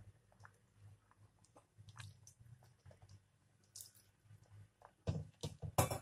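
Thick tamarind-and-coconut drumstick curry simmering in an open aluminium pressure-cooker pot, bubbles popping and plopping at scattered moments. A few louder pops come close together near the end.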